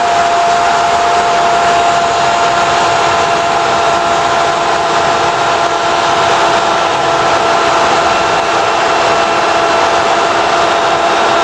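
A Brazilian radio commentator's drawn-out goal cry, one high shouted note held without a break and sagging slightly in pitch near the end, over steady crowd noise.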